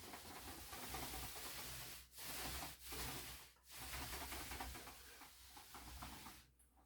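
Primer being applied to drywall by hand, a soft hissing rub in about four long strokes with brief pauses between them.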